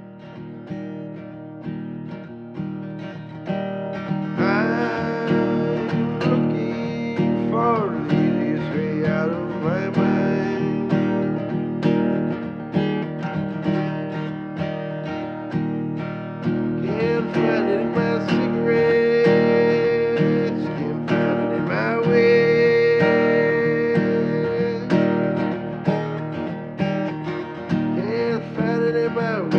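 Acoustic guitar music fading in over the first few seconds, with a melody above it whose pitch slides and wavers.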